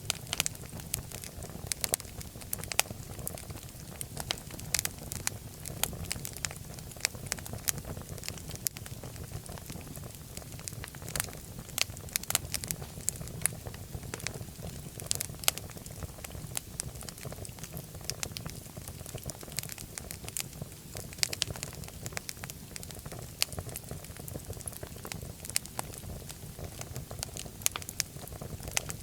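Fire burning in a fireplace, crackling and popping with many irregular sharp snaps over a steady low rumble of flame.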